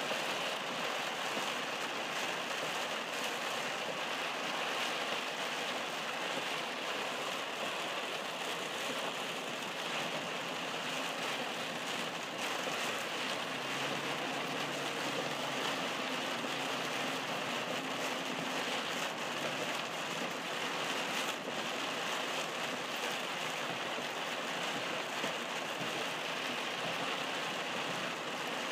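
Heavy rain falling on a moving car's windshield and roof, heard from inside the car together with tyre spray on the wet highway: a steady, even hiss.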